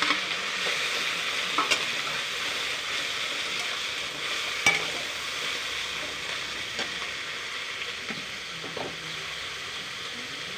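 Ground barbati (long bean) paste frying in hot mustard oil in a metal kadhai, with a steady sizzle that slowly dies down as it is stirred. A metal spatula scrapes the pan and gives a few sharp taps against it.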